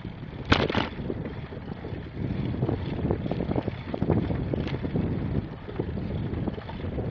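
Wind buffeting the microphone on a moving bicycle, over a low rumble with irregular knocks and rattles. A sharp clatter about half a second in is the loudest sound.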